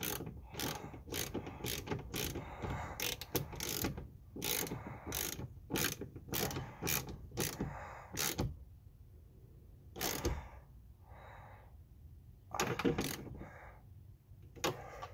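Hand ratchet with an 11 mm socket clicking in quick repeated strokes, about two to three a second, as it tightens a rear-glass hinge bolt. The ratcheting stops about eight seconds in, followed by a few separate clicks.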